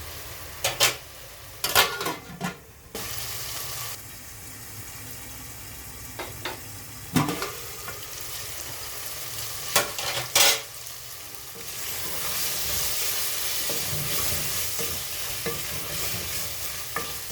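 Meat and tomatoes sizzling in a pot, stirred with a spoon that knocks against the pot several times in the first half. The sizzling grows louder in the last few seconds.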